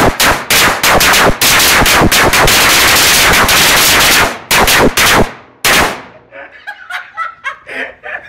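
A batch of firecrackers going off in a bonfire: a rapid string of sharp bangs that blurs into continuous crackling for about three seconds, then a few last separate bangs, stopping about six seconds in.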